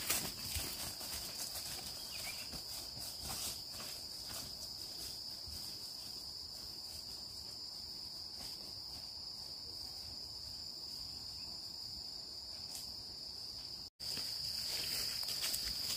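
Steady, high-pitched drone of a forest insect chorus. It drops out for a moment near the end, then resumes a little louder.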